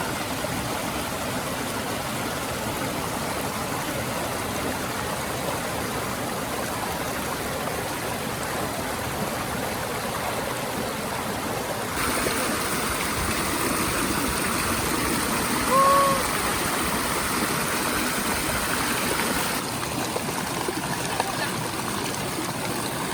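Mountain stream water rushing steadily over rocks and falls, its tone shifting twice as the shot changes. A short pitched call sounds briefly over it a little past the middle.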